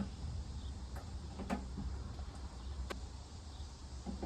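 A few sharp, faint clicks and taps of a small Torx bolt being worked loose by hand inside a Ram pickup's tailgate, over a low steady rumble.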